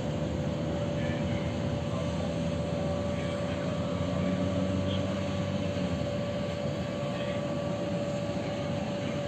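Canadair water-bombing aircraft's engines running steadily: a continuous whine over a low rumble that swells slightly midway.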